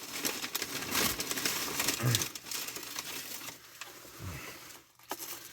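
Crinkling and rustling of takeout food packaging being handled, densest in the first couple of seconds, then thinning to a few soft rustles.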